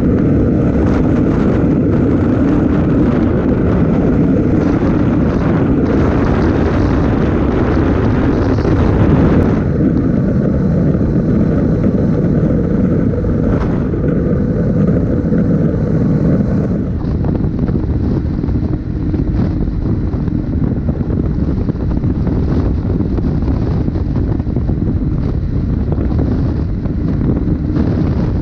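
Strong sandstorm wind blasting the microphone of a Honda NC700X motorcycle riding at speed, with the bike's parallel-twin engine running steadily underneath. The wind noise eases a little about ten seconds in and again around seventeen seconds.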